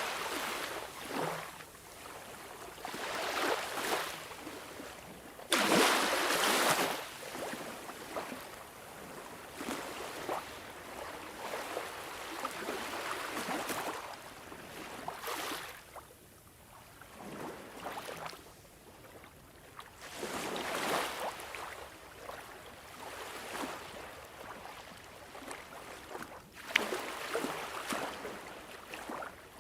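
Sea waves breaking and washing up on the shore, surging and ebbing every few seconds, with the rush of water and hiss of foam.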